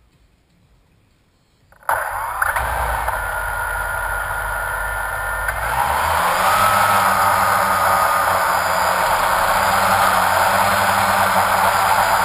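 A drone's electric motors and propellers, heard close up from on board, start suddenly about two seconds in and run with a steady whine. Around six seconds in they throttle up, louder and rising in pitch, as the drone lifts off and climbs.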